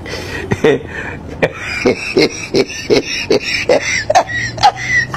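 Background music with a percussive beat of about three hits a second. Some hits have a pitched, vocal-like sound that climbs near the end, and a steady low tone comes in about four seconds in.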